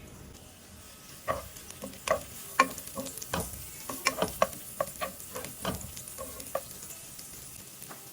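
A cooking utensil stirring food in a frying pan, knocking against the pan in a quick run of irregular clacks, over a faint sizzle of frying.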